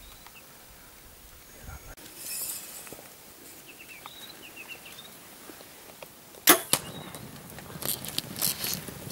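A bow shot: one sharp crack about six and a half seconds in as the string is released at impala. A second or so later comes a quick clatter of hooves as the impala bolt on dry ground. A few bird chirps come before the shot.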